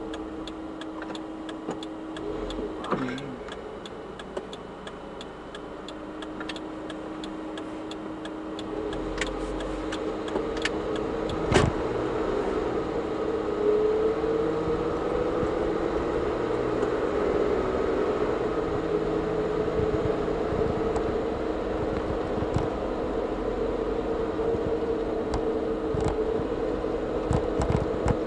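A car's engine and road noise heard from inside the cabin. It is quieter while the car slows through a junction, then rises over several seconds as the car picks up speed and settles into a steady cruise. A single sharp knock comes about twelve seconds in.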